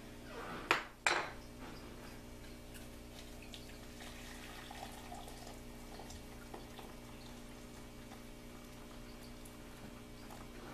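Hot water poured in a thin, steady stream from a stainless kettle into a glass measuring cup holding tea bags, after two sharp knocks about a second in.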